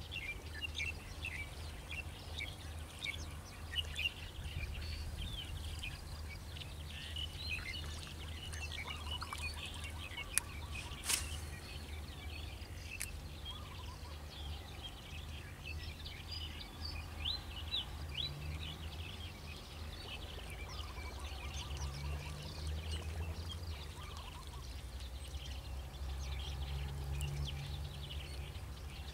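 Birds chirping and calling over a steady low rumble, with two sharp clicks a little after ten seconds in.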